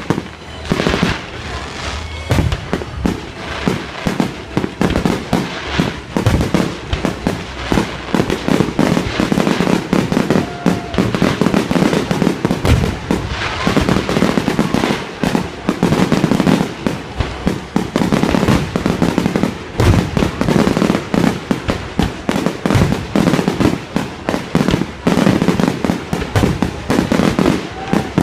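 Fireworks display: many shells and crackers going off in quick succession, a dense, continuous string of bangs and crackling with the odd heavier boom.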